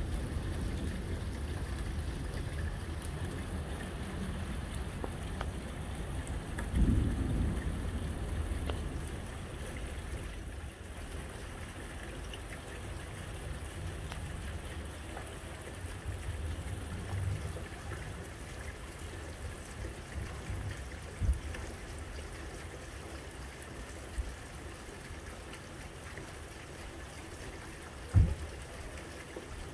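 Thunderstorm: steady rain hiss over a low, continuous rumble of thunder that swells about seven seconds in. A few short, sharp low thumps stand out in the second half.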